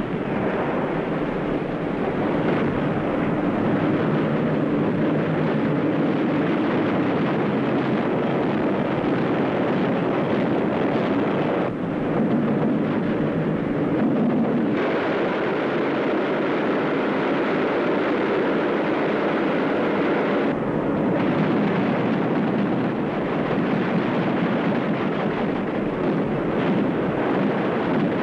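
Steady drone of a motor torpedo boat (Schnellboot) running fast through heavy sea, engine noise mixed with rushing water and wind, with slight shifts in the sound about 12, 15 and 21 seconds in.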